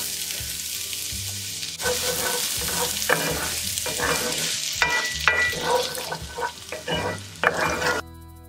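Diced onion sizzling in hot olive oil in a cast iron skillet, stirred with a wooden spoon that scrapes and knocks against the pan several times. The sizzle cuts off suddenly near the end.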